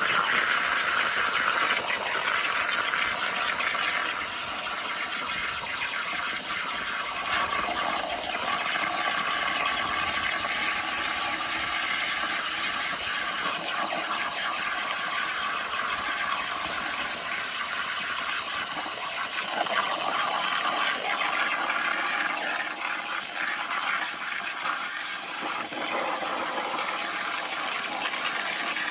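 Plasma torch on a CNC cutting table cutting through steel plate: a steady hiss.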